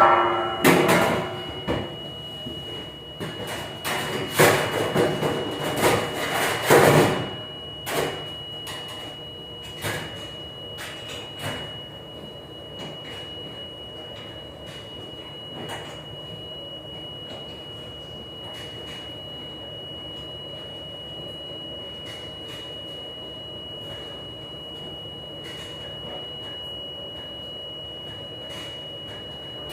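Dishware clattering and knocking for the first several seconds, then a steady hum of commercial dishwashing machinery with a thin, constant high whine and an occasional clink.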